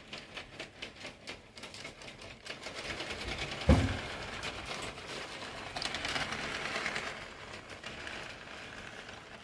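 HO scale model diesel locomotives rolling along sectional track: small electric motors running with a rapid rhythmic clatter of wheels over the rail joints. A sharp thump comes a little under four seconds in.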